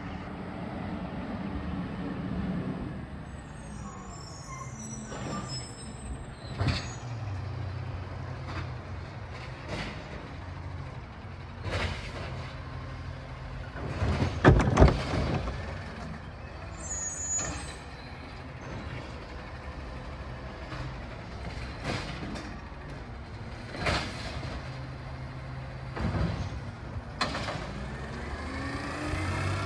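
Recycling truck's diesel engine running with a steady low drone, punctuated by repeated irregular metal clanks and bangs as bins are lifted and emptied. The loudest bangs come about halfway through. Near the end there is a whine that bends in pitch.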